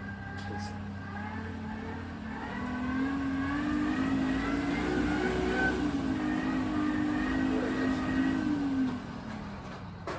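A motor engine's steady hum swells in about two and a half seconds in, holds for several seconds with small shifts in pitch, and fades away near the end, like a motor vehicle passing.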